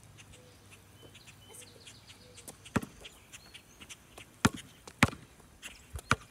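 A basketball bouncing on asphalt: a handful of sharp bounces from about halfway through, spaced out at first, then two in quick succession near the end.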